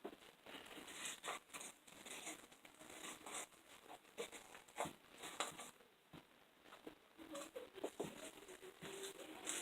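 Foam bead slime being squeezed and stretched by hand, the foam beads crunching in quick, irregular crackles and pops.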